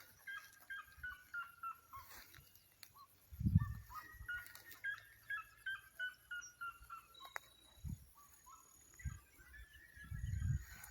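A bird calling in repeated runs of short notes, each run falling in pitch, three runs in all, with a few low thumps in between.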